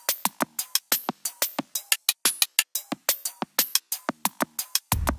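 Electronic keyboard drum-machine rhythm: a quick, even beat of short, clicky percussion hits, with a deep bass line coming in near the end.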